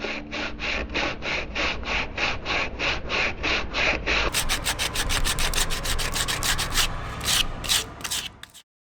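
Rhythmic back-and-forth rubbing strokes by hand, about three a second, then faster at about five a second from about four seconds in. They stop suddenly near the end.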